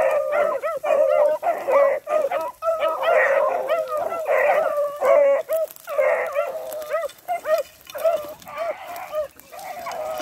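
A pack of about ten hounds baying together, many voices overlapping in a continuous chorus, thinning to fewer, separate cries over the last few seconds. The pack is running a rabbit on its scent.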